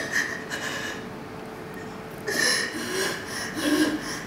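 A person crying: sniffling and sobbing breaths in short bursts, coming thicker in the second half, with brief whimpers near the end.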